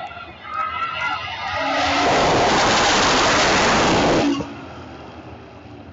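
Drag racing cars launching and running down the strip at full throttle: a very loud engine noise that builds over about a second and a half, holds for about two seconds, then drops off sharply just over four seconds in.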